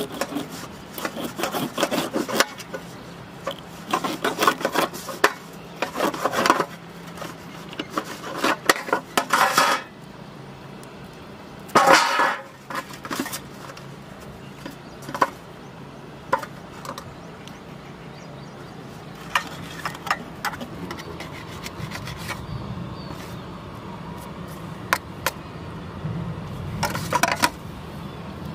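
Kitchen knife scraping and cutting small fish in a stainless steel bowl, the blade clicking and scraping against the metal. Busy runs of scrapes in the first ten seconds and one loud scrape about twelve seconds in, then fewer, scattered clicks.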